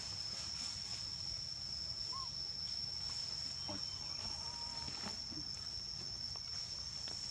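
Forest ambience: a steady high-pitched insect drone over a low rumble, with a few light clicks and two brief faint chirps.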